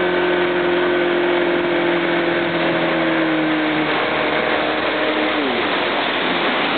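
Tow boat's engine running at speed over the rush of wind and churning wake, then throttled back about five seconds in, its pitch dropping sharply as the boat slows after the wakeboarder falls.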